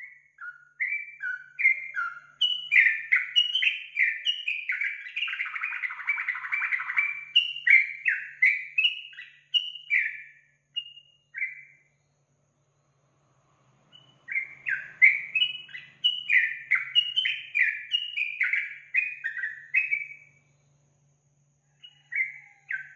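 Yellow-vented bulbul (trucukan) singing: long runs of quick, bubbly chirping notes with a denser chattering stretch in the first half. After a pause of about two seconds another run follows, then a few short notes near the end.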